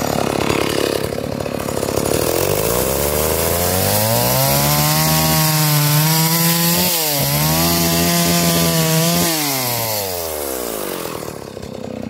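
Stihl chainsaw ripping lengthwise through a log. The engine climbs to full speed a few seconds in, holds high with a brief dip, then winds down toward the end.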